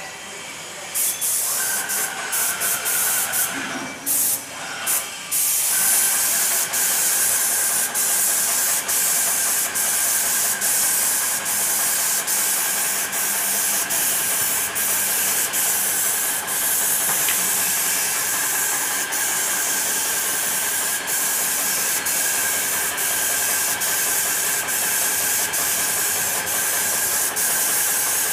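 Hose-fed paint spray gun spraying coating onto a wall: a loud, steady hiss with a steady high whine alongside it. It starts about a second in, stops and restarts a few seconds later, then runs on unbroken.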